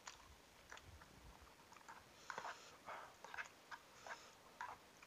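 A person eating noodles: quiet chewing and wet mouth clicks, irregular and busiest from about two seconds in.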